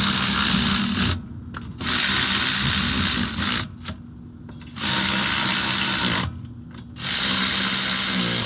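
Cordless power ratchet spinning bolts in on a lower control arm, running steadily with a motor hum, in four runs of one to two seconds with short pauses between. This is the bolts being run in, not final tightening.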